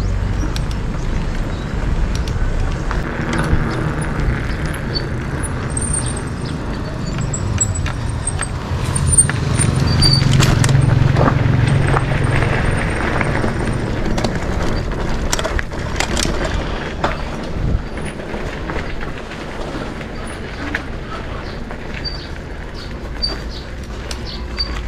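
Outdoor road noise with a motor vehicle passing. Its low rumble builds to the loudest point about ten to thirteen seconds in, then fades, with scattered light clicks.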